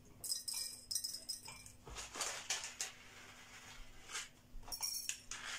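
Black peppercorns dropped by hand into empty glass jars: a scattered run of small clicks and rattles against the glass, several a second.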